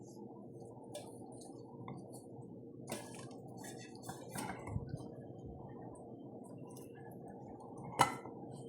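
Dishes and kitchen utensils clinking now and then over a steady low hum, with one sharp clink about eight seconds in.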